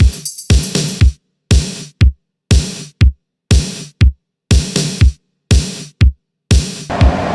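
Electronic background music with a drum-machine beat, about one heavy kick-drum hit a second, each followed by a short fill and a sudden drop-out. Near the end the beat gives way to a steady rushing noise bed.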